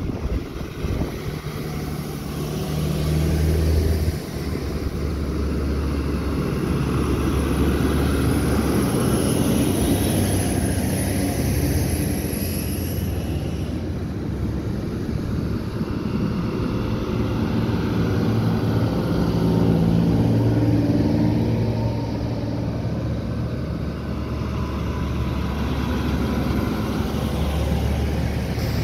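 Fire trucks' diesel engines rumbling as the trucks drive slowly past one after another. The sound swells and fades as each truck goes by.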